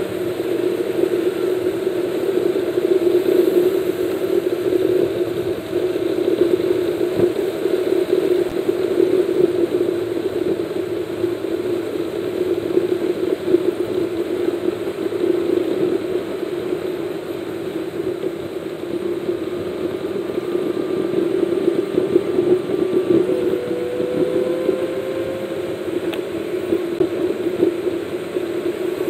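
Steady drone of a car's engine and tyres at highway speed, heard from inside the cabin, with a faint rising tone about three-quarters of the way through.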